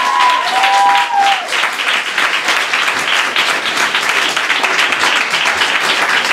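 Audience clapping and cheering. A few drawn-out voiced cheers fade out in the first second and a half, then dense, steady clapping carries on.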